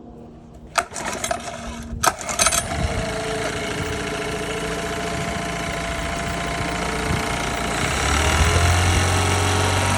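Honda 9.9 four-stroke outboard engine pull-started: a few knocks of the pull, then it catches about two and a half seconds in and runs steadily, getting louder near the end. It starts on the first pull now that its ignition coil has been taken off and reconnected, which for this motor restores the spark that was missing.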